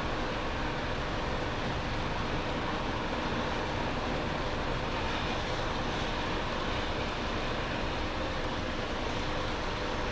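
Steady jet aircraft engine noise, a constant rushing with faint steady tones in it.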